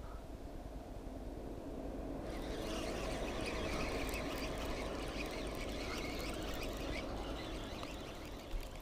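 A baitcasting reel is being cranked while a hooked perch is played and reeled in. A dense, steady whir runs from about two seconds in to about seven seconds, and a single knock follows near the end.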